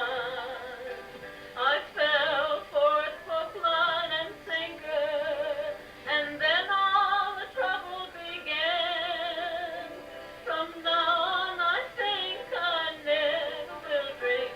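Music with a sung melody: a voice holding long notes with strong vibrato, phrases broken by short pauses.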